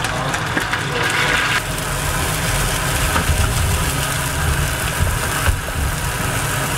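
Water poured into a hot wok of braising yellow croaker, sizzling and hissing until about a second and a half in, then the liquid boiling steadily over the gas flame.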